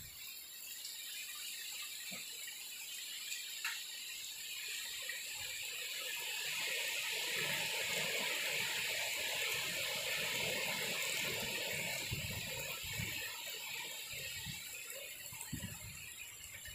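A strong gust of wind rushing through trees, swelling for several seconds and then dying away.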